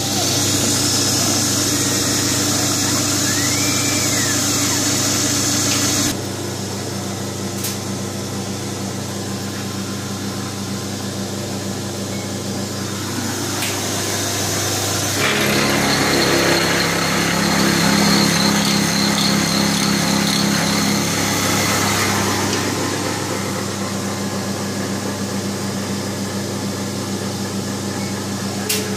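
Benchtop CNC milling machine running, its end mill cutting an aluminium bracket held in a vise: a steady motor hum with cutting noise over it. The sound changes abruptly about six seconds in and again about fifteen seconds in.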